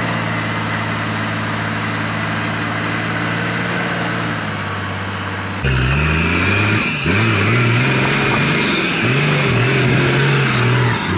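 Toyota Land Cruiser HDJ80's 4.2-litre turbo-diesel straight-six held at a steady speed, then, about five and a half seconds in, revved up and down again and again as the truck works through deep mud.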